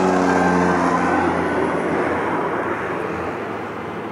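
Cessna 208B Grand Caravan's single PT6A turboprop engine and propeller going past and moving away: the propeller's hum fades out about a second and a half in, leaving a rushing engine noise that keeps growing fainter.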